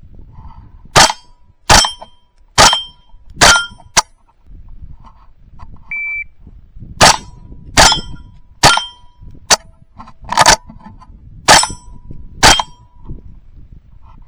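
.22 rimfire gunshots at steel targets. Five shots come a little under a second apart, most followed by a short metallic ring from the plates. About six seconds in a shot timer beeps once, then seven more shots follow in a similar rapid string.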